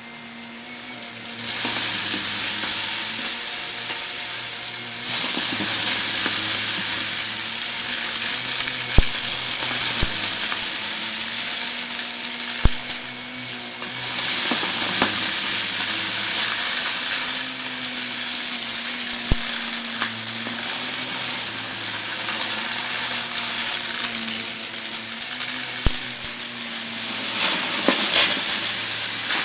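Vacuum cleaner sucking up crunchy debris: a loud, steady crackling hiss that comes up over the first second or so, with scattered sharp ticks of pieces striking inside the machine.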